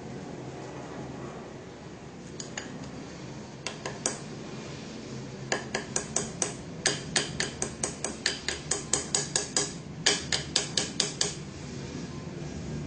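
A mixing utensil knocking against the bowl as cake batter is mixed by hand. A few scattered clicks give way, about halfway in, to a quick run of clicks about four a second, with a short break before the last burst.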